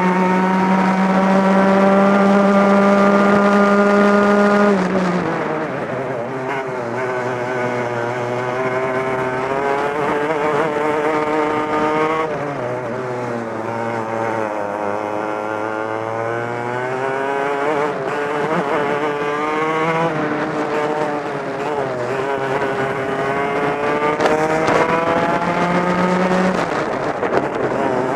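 Two-stroke racing kart engine heard onboard, revving hard: held at high revs for the first few seconds, then dropping sharply as it lifts off about five seconds in. It climbs and falls again and again through the bends, with a last long climb that cuts back near the end.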